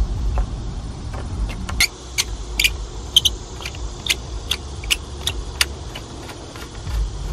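Metal clicks and rattles as a garden hose's brass coupling, with a coiled metal guard, is twisted onto an outdoor faucet: about a dozen sharp ticks, roughly two a second, over a low rumble.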